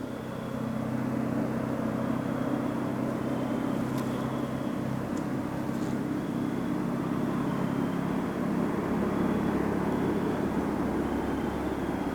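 A steady engine hum, growing louder within the first second and then holding.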